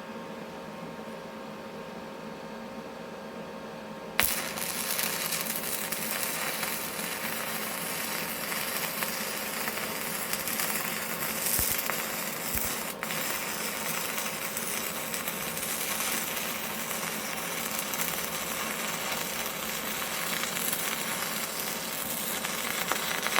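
Stick-welding arc from a 3/32 inch 6011 electrode at 80 amps on a Yeswelder MIG 250 Pro: over a steady machine hum, the arc strikes about four seconds in, then crackles and sizzles continuously for about nineteen seconds, cutting off near the end.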